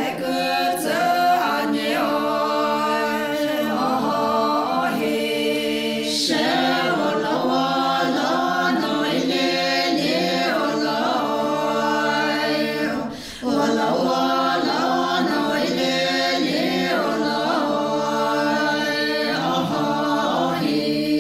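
A group of women singing together unaccompanied, in long held phrases, with a short break for breath a little past halfway.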